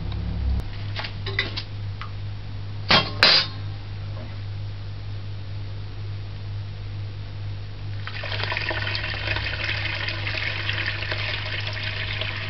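A few light clinks and two sharp knocks of pots being handled about three seconds in, then from about eight seconds in a steady pour of liquid through a plastic mesh strainer into a large metal pot.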